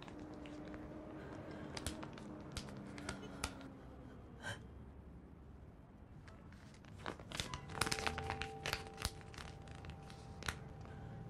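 Paper rustling and crinkling with small clicks and taps as slips of paper are handled and folded, busiest and loudest about two-thirds of the way in. Faint soft music with held notes plays underneath.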